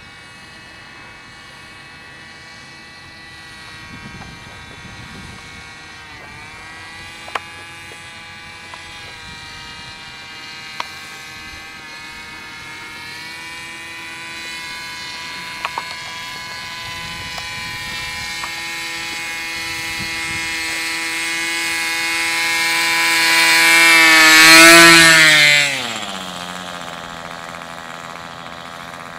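O.S. 46FX two-stroke glow engine of a radio-controlled paramotor, running with a steady buzzing whine that grows louder as the paramotor descends toward the runway, loudest about 25 seconds in. The pitch then drops quickly and it settles to a lower, steady idle as the paramotor lands.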